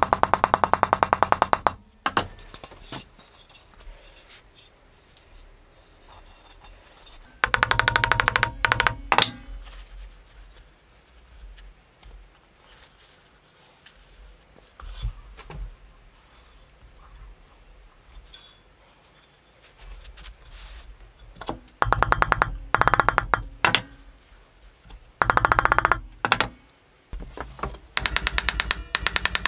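Ball-peen hammer beating dents out of a thin steel helmet shell resting on a folded glove: runs of rapid, closely spaced strikes. The runs come about five times, with quieter knocks and handling between them.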